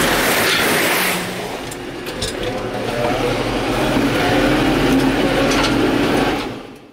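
Case IH Farmall 115U tractor engine running, heard from inside the cab, its note climbing a little in the second half, then fading out at the very end.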